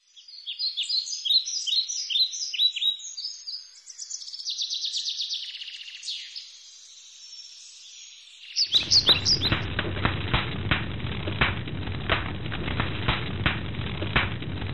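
Birds chirping and trilling in quick, high calls, then about nine seconds in a sudden switch to the dense crackle and low rumble of a large forest fire burning.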